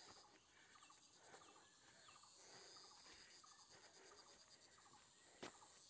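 Near silence with a faint, high, rapidly pulsing insect trill, like crickets or cicadas in the vegetation, and one sharp click near the end.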